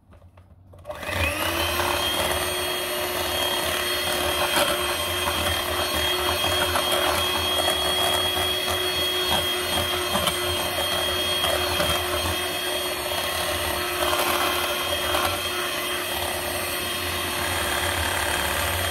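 Small electric hand mixer switching on about a second in, speeding up briefly, then running with a steady whine as its beaters churn cake batter of butter, sugar, oil and eggs in a glass bowl.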